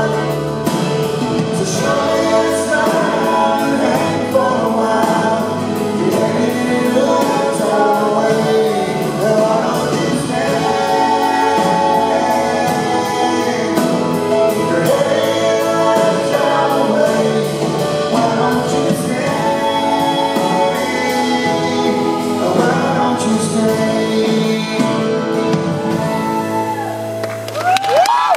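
A man singing a song live while playing acoustic guitar.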